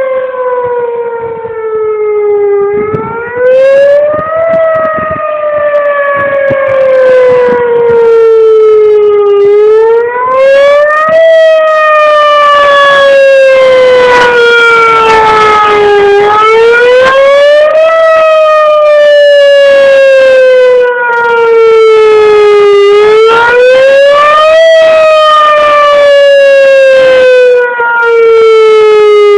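Whelen Vortex R-4 electronic outdoor warning siren sounding its wailing Attack tone: a loud, pitched tone that rises quickly over a second or two, then falls slowly over about five seconds, repeating about every seven seconds.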